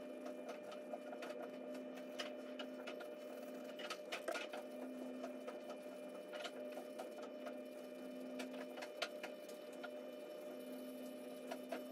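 Pencil scratching on paper in quick strokes and hatching, over a steady hum.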